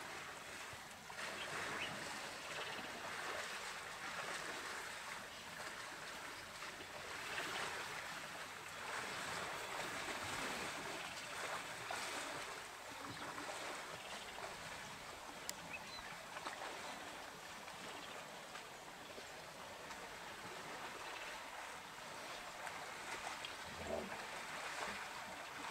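River water rushing and splashing in a steady wash that swells and eases every few seconds.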